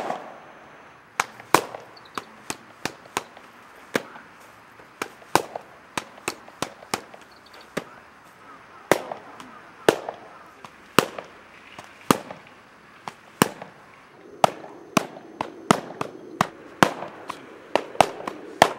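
A training baton, a solid plastic stick, landing short, sharp strikes on a hand-held striking pad: dozens of sharp smacks in quick, uneven succession, the first the loudest.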